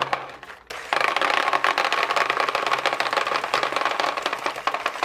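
Spire electronic paintball hopper running, its motor whirring while lightweight 3D-printed TPU paintballs rattle through it in a feed test. It starts with a click, and the dense rattle comes in about a second in.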